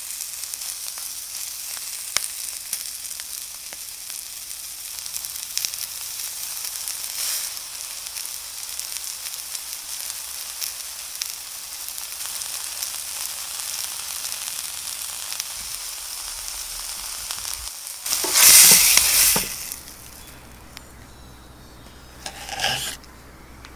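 A thick beef steak with thyme sizzling in a hot frying pan: a steady high hiss with scattered small crackles. About 18 seconds in, a louder rush of noise lasts over a second, and a shorter one follows near the end.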